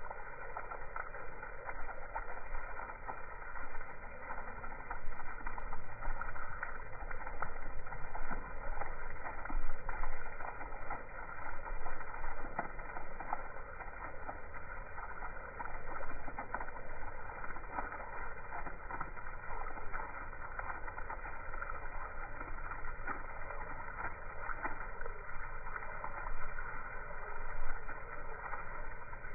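A stream of water pouring onto a lawn and splashing: a steady rush broken by many small irregular splashes. It is slowed down with the slow-motion picture, so it sounds low and stretched.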